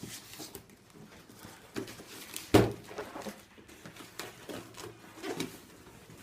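Scattered small knocks and rustles of a cardboard parcel and its packaging being handled, with one sharper knock about two and a half seconds in.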